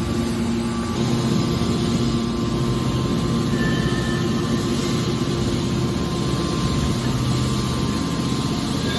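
Aluminum can baler machine running with a steady mechanical hum, a little louder from about a second in.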